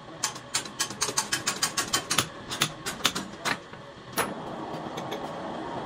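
Sharp metallic clicks, several a second, from a metal lathe being set up to machine a cast-iron truck brake drum. A little after four seconds a louder clunk, then a steady mechanical running noise.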